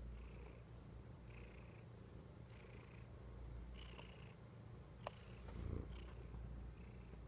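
Domestic cat purring steadily up close, a low continuous rumble with a faint breathy rasp coming and going about once a second, and a few light clicks.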